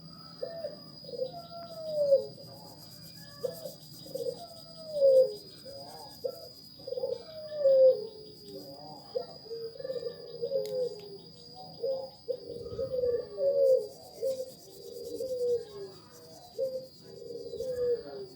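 Birds calling in a run of short, low, cooing notes, many falling in pitch, over a steady high insect-like whine.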